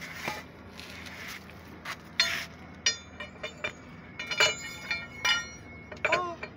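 Steel tube box spanner and its tommy bar clinking against the truck wheel hub and its nuts. Some soft rubbing is followed, from about two seconds in, by an irregular run of sharp metallic clinks, each with a brief ring.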